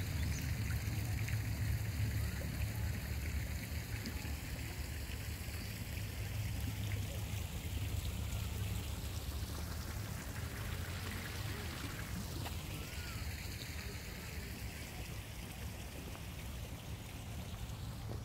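Small garden fountain splashing and trickling into its pool, a steady watery hiss, with a low steady rumble underneath.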